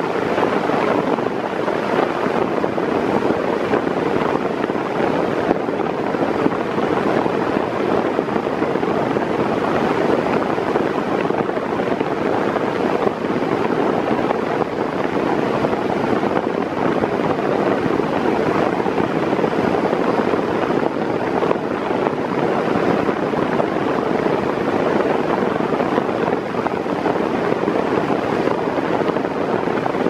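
Mondial Maxi Power Black 140 W 40 cm fan running at top speed: a steady, loud rush of air. The owner puts the noise down to air forcing its way through the fan's narrow-slatted, old-design grille.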